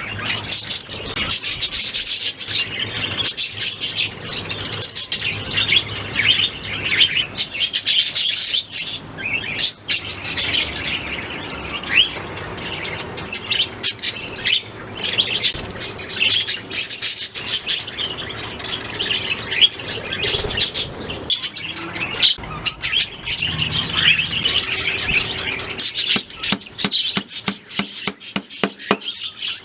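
A group of budgerigars chirping and warbling without a break, with many short calls overlapping. Near the end comes a run of quick sharp clicks.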